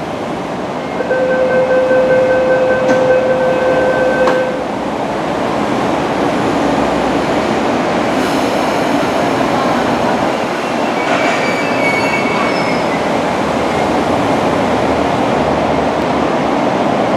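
Electric passenger train running along the track, heard from aboard: a steady rolling rumble. For about three seconds near the start a steady high tone sounds over it, and brief high wheel squeals come about two-thirds of the way through.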